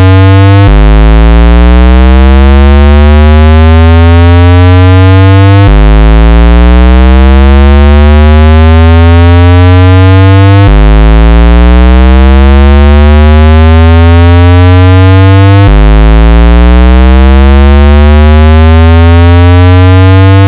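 Synthetic speaker-cleaning tone played at full volume: a steady deep bass hum under a buzzy tone whose pitch rises slowly and then drops back to start again, about every five seconds. It is made to clean a phone or laptop speaker by making its cone vibrate hard.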